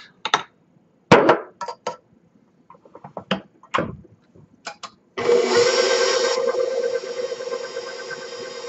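Scattered sharp taps and knocks of a spatula and small glass bowl against the stainless steel mixing bowl as sauerkraut is tipped in. About five seconds in, a KitchenAid tilt-head stand mixer starts and runs with a steady motor hum, its flat beater turning through thick cake batter, settling a little quieter about two seconds later.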